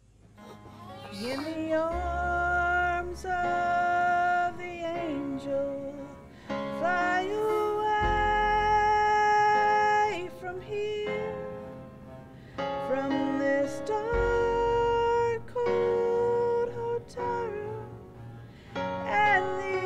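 A woman singing a slow, held melody to piano accompaniment, with deep bass notes coming in about every six seconds. It rises out of silence at the start.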